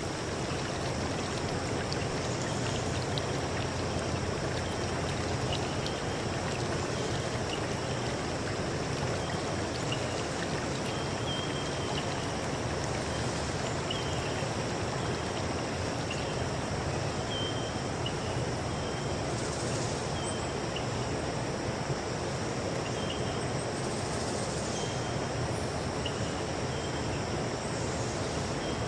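A stream running steadily, with a constant high insect drone above the water and short high chirps repeating every second or two.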